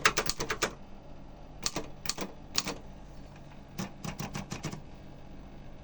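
Royal typewriter keys striking: a fast run of keystrokes that stops within the first second, then three separate strikes, then another quick burst of about seven keystrokes.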